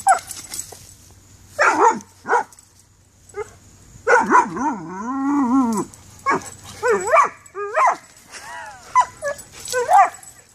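Dog barking and yipping in short bursts, with one longer, wavering cry about four seconds in.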